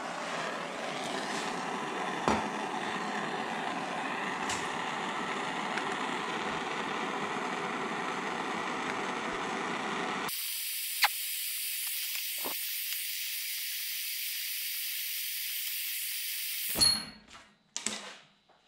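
Hand-held propane torch burning with a steady hiss as it heats a cast aluminum casing for brazing. About ten seconds in, the hiss turns thinner and higher. Near the end it stops with a sharp click, followed by a few clanks.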